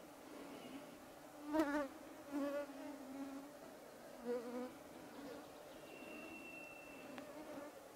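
Mosquitoes and other flying insects buzzing in a steady droning whine, with single insects passing close and swelling loud, the loudest about a second and a half in, others near two and a half and four and a half seconds. A thin high whistle holds for about a second near the end.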